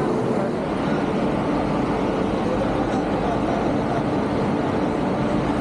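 A steady engine drone, a constant hum over dense rumbling noise, with no break or change.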